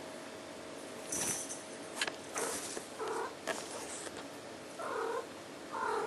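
A young Maine Coon cat making odd short calls, three of them about a second or two apart in the second half, after a few brief rustling noises.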